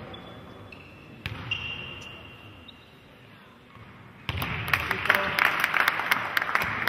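A basketball bouncing on a hardwood court at a free throw. About four seconds in, as the shot goes up, a loud burst of noise from spectators and benches breaks out, thick with sharp claps.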